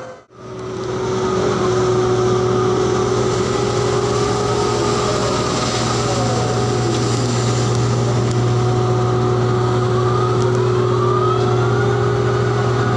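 Floating crane machinery running while the coal grab is hoisted and swung: a steady low diesel drone with a constant hum. Several winch whines slide up and down in pitch over it. The sound drops out for a moment right at the start, then returns at full level.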